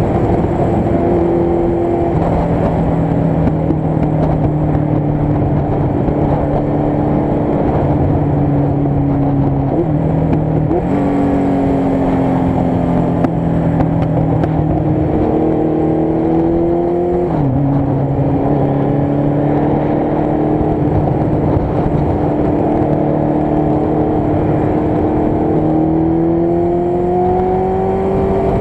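Motorcycle engine running while riding, its pitch climbing slowly with the throttle and dropping sharply about three times, as at gear changes.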